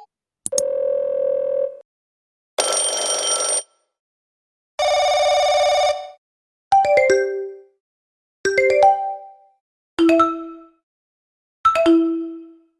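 A run of separate short sound effects with gaps between them: a buzzy beep, a harsh ring, a buzzer, then four short chime jingles, each a few quick notes falling to a held low note.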